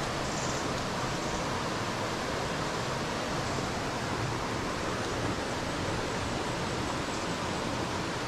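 Steady rush of flowing water, an even hiss with no breaks or changes in level.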